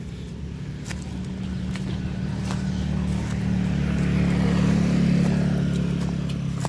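A motor vehicle engine running with a steady low hum, growing louder to about five seconds in and then easing off. Footsteps sound faintly on gravel and dry leaves.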